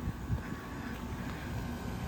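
Outdoor air-conditioning condenser units running: a steady low hum with faint steady tones from the compressors and fans.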